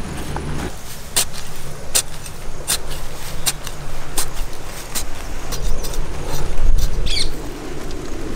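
Machete blade chopping into grassy turf, a sharp strike about every three-quarters of a second, over a low rumble; a short high chirp near the end.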